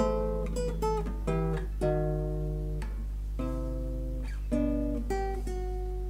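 Background music: an acoustic guitar picking slow single notes and chords, each ringing out, over a steady low hum.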